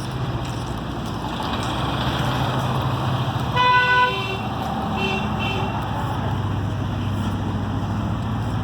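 An engine running steadily, with a vehicle horn blowing for about half a second halfway through, then two short, higher beeps about a second later.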